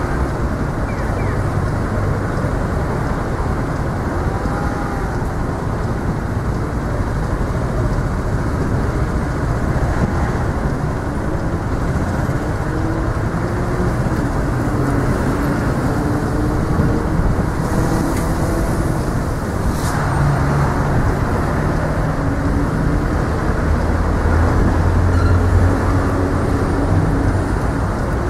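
Steady city road traffic: cars passing in a continuous rumble, with the hum of engines rising and falling. A brief sharp click about twenty seconds in.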